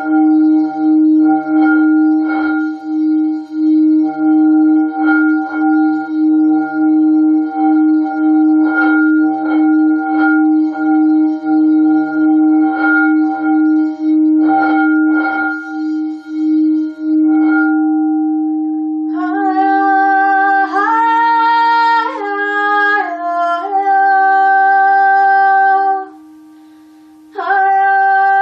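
A singing bowl rings a steady, pulsing tone with bright overtones and a few light strikes. About two-thirds of the way in, a woman's voice joins it with long wordless sung notes that step between pitches. The voice breaks briefly near the end and then comes back while the bowl's tone hums on underneath.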